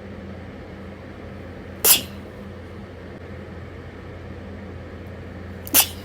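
A person sneezing twice, two short sneezes about four seconds apart, over a steady low hum.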